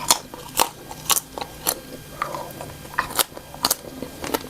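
Close-miked chewing, with sharp crisp crunches about twice a second and a short pause midway.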